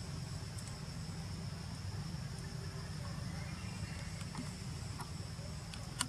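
Outdoor ambience of insects shrilling in a steady high tone over a constant low rumble, with a few faint clicks and one sharp click just before the end.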